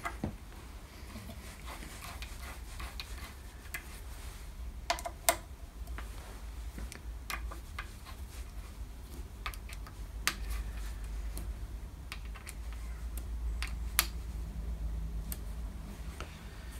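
Scattered small metallic clicks and ticks as a hex key turns socket cap screws into a steel ball screw end support block, over a low steady hum.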